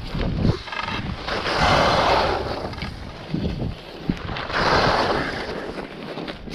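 Handling noise from a GoPro held against a puffy jacket: fabric rubbing and wind buffeting the microphone, with low rumbling and two swelling hisses about three seconds apart.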